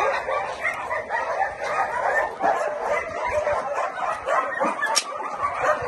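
A pen full of puppies calling all at once: many short, high-pitched calls overlapping without a break. A single sharp click sounds about five seconds in.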